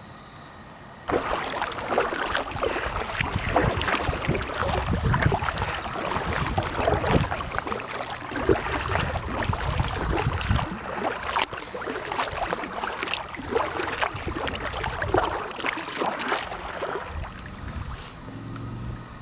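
Water splashing and sloshing around a kayak as it is paddled, a dense irregular wash of splashes. It starts suddenly about a second in and dies away near the end.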